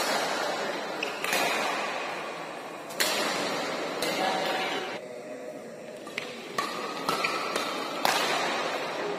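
Badminton rackets striking a shuttlecock in a doubles rally: sharp smacks that echo around a large hall, about eight in all, coming fast in the second half. Short shoe squeaks on the court floor fall between the hits.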